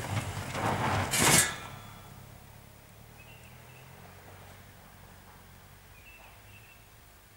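Opel Mokka 4x4 engine running as the car crests a dirt ramp, with a short, loud scrape about a second in: the exhaust pipe rubbing the ground. The engine then fades away, and a few faint bird chirps follow.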